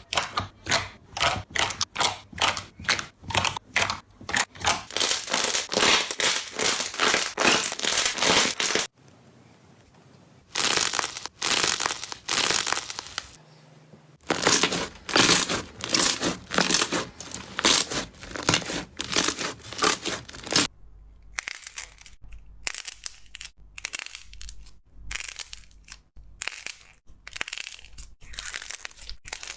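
Slime being squeezed and pressed by hand, making dense runs of crackling pops. After a short quieter spell about nine seconds in the crackling resumes, then thins out to separate clicks and pops in the last third.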